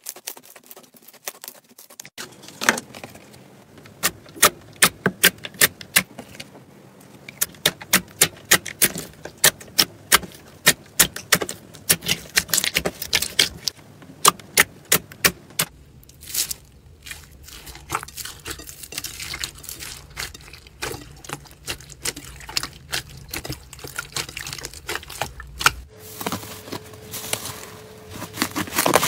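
Slime being played with ASMR-style: a run of sharp clicks and pops in quick clusters, softening to a lighter crackle later on.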